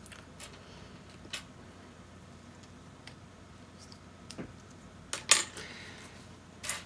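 Small plastic LEGO pieces clicking and clattering on a tabletop as they are set down and spread out: a few separate clicks, with the loudest clatter about five seconds in and another just before the end.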